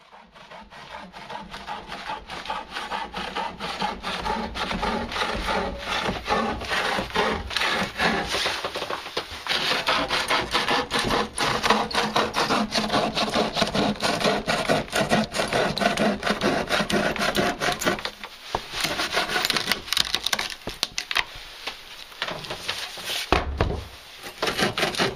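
A bow saw cutting through a weathered wooden plank, rasping in quick back-and-forth strokes, with a couple of brief breaks a little past two-thirds of the way through.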